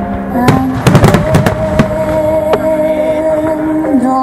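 Aerial fireworks shells bursting: a quick cluster of sharp cracks and bangs in the first two seconds and one more about two and a half seconds in. Under them plays accompanying music with long held notes.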